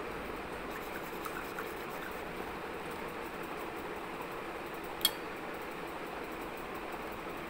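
Steady background hiss with one sharp tap about five seconds in, likely a small object set down or knocked on the tabletop while cardboard parts are handled.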